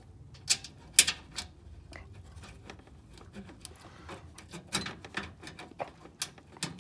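Scattered light clicks and taps, metal on metal, as a bolt is started by hand on the transmission cooler's bottom mount.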